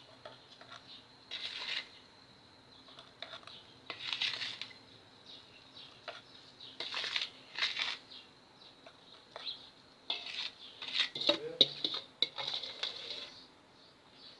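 Ground homemade salt being poured into a small container, in a series of short hissing pours. A busier run of clinks and scrapes against the container comes near the end.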